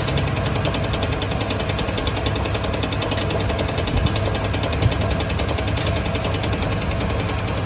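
Workshop machine with an electric motor running steadily, giving a continuous low hum with a fast, even buzz over it.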